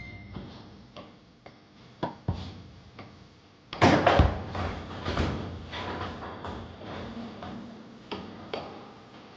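Foosball ball being passed and shot on a Tornado table: sharp knocks of the ball against the plastic players and the table walls, with a loud flurry of hard hits about four seconds in, then quicker lighter clicks.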